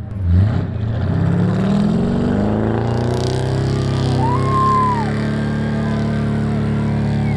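Off-road wrecker rig's engine revving up over the first couple of seconds, then held at high revs as its tyres spin and dig in deep sand. A short, high whistle-like call rises and falls over it about four and a half seconds in.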